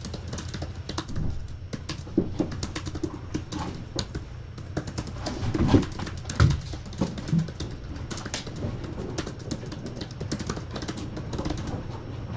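Irregular light clicking and tapping, with a few louder soft thumps about halfway through.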